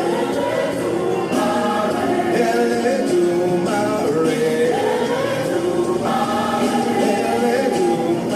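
Choir singing gospel praise music, many voices together, steady and continuous.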